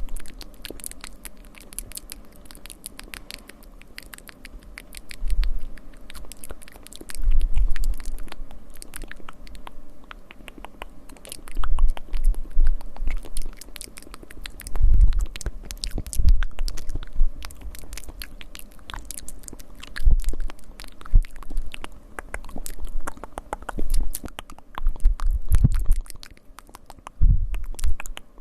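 ASMR scratching and mouth sounds close to the microphone: dense rapid clicks and crackles, with soft low thuds every few seconds.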